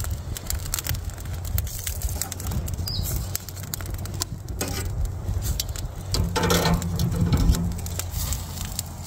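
Lamb seekh kebabs cooking over a charcoal barbecue: irregular crackling and sizzling over a steady low rumble of wind on the microphone, with a louder stretch about six seconds in.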